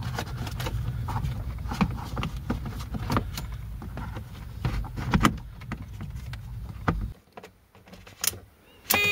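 Scattered plastic clicks and knocks from a heater control servo motor being fitted back into place under a van's dashboard, over a steady low rumble that cuts off abruptly about seven seconds in.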